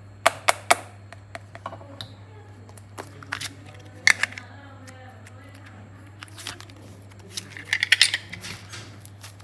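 Sharp clicks and taps of hard plastic ice-pop moulds being handled, with three quick clicks near the start. About eight seconds in comes a crackling squish of soft modelling clay squeezed in a hand. A low steady hum runs underneath.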